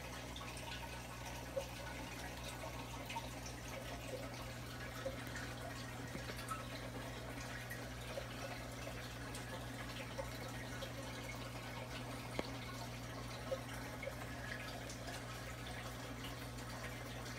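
Aquarium water trickling and dripping, with a few small ticks, over a steady low electrical hum from the tank equipment.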